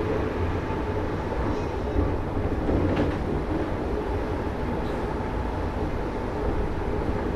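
Wenhu line automated rubber-tyred metro train running steadily: an even low rumble of tyres and running gear with a faint hum and a few small clicks.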